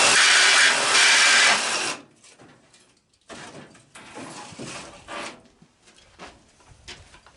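A power tool runs loud and steady, then cuts off about two seconds in. Light clicks, knocks and rubbing of metal parts being handled follow.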